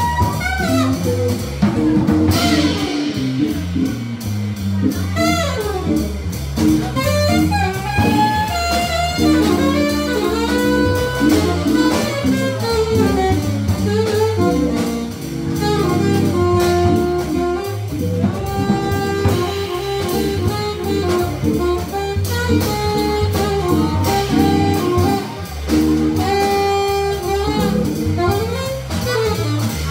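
Live jazz: a saxophone solo of quick running lines over organ comping and a walking organ bass line, with a drum kit keeping time.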